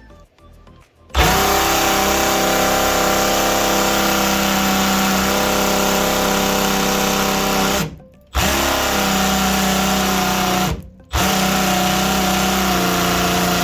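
Power tool run against rusted, seized body-to-chassis bolts. It runs in three long bursts at a steady pitch, starting about a second in, with brief stops about eight and eleven seconds in.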